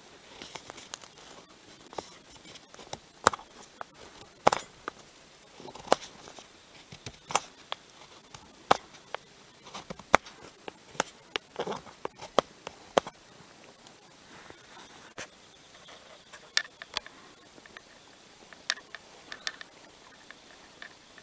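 Knife shaving a bark-covered stick braced on a wooden round: a run of short, sharp scraping strokes, irregular and roughly one a second, thinning out in the last several seconds.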